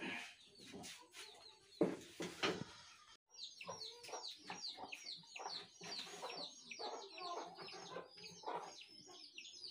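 A few knocks in the first three seconds. After a brief break, birds chirping rapidly, many short falling notes several times a second.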